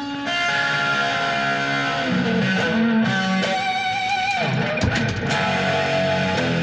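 Electric guitar played solo for a tone check: held notes and a short melodic line, with vibrato on a held note about four seconds in and a brief scratchy noise about a second later.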